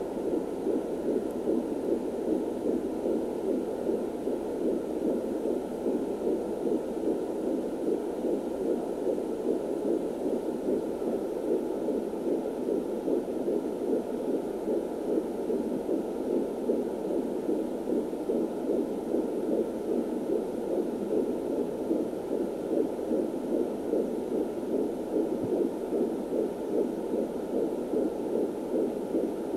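Fetal heartbeat at 14 weeks of pregnancy, picked up through an Angel Sounds handheld fetal doppler: fast, even whooshing pulses over a steady hiss.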